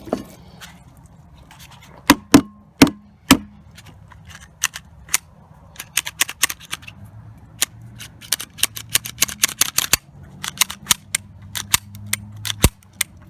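Sharp metallic clicks and clacks of a Ruger American 9mm pistol being worked by hand as its frozen action is freed from ice: four loud clacks about two seconds in, then runs of quicker, lighter clicks.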